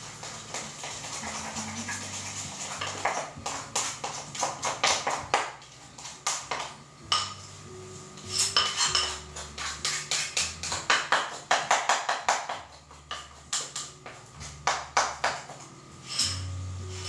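Metal utensil stirring and beating in a ceramic bowl, fast runs of clinks and scrapes, as icing sugar and lemon juice are mixed into a glaze. Music plays quietly underneath.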